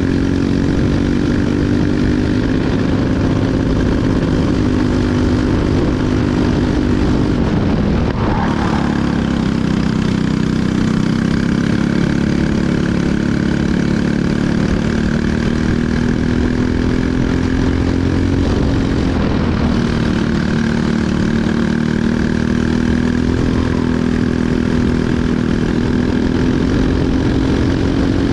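Briggs & Stratton LO206 four-stroke single-cylinder kart engine running hard, heard from on board. Its pitch drops sharply about eight seconds in and again near nineteen seconds as the kart slows for corners, then climbs back up through each straight.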